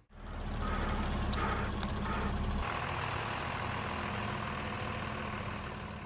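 Diesel engine of a truck-mounted boom concrete pump running steadily. There is a deep rumble for the first two and a half seconds, which then drops away, leaving a steady engine hum.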